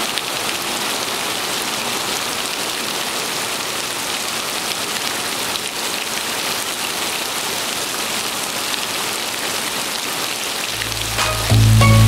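Heavy rain falling on water, a steady, even rain sound throughout. Near the end, music with a deep bass note comes in over it.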